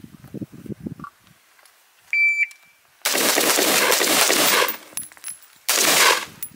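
A shot timer beeps once about two seconds in. About a second later comes rapid rifle fire in a long string that runs together, then a second, shorter string near the end.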